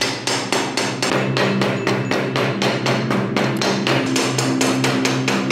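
Steel-headed hammer beating rapidly on a heavily rusted kitchen knife blade, about four to five blows a second, knocking the rust scale loose.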